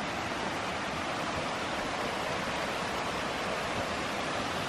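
River water rushing over rocky rapids and small falls: a steady, even rush.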